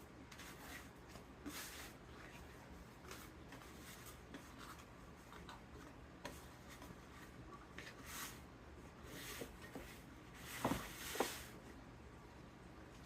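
Hands working and shaping bread dough: soft, scattered rubbing and light ticking handling sounds, with two sharper knocks close together about eleven seconds in.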